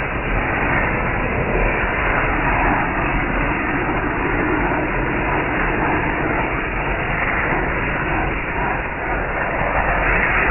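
A ring of firecrackers going off under an upturned plastic tub, a dense, continuous crackle and hiss that holds steady.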